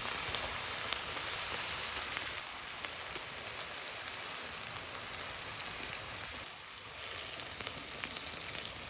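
Food sizzling and crackling in hot oil in a frying pan, a steady hiss that eases off briefly about two-thirds of the way through.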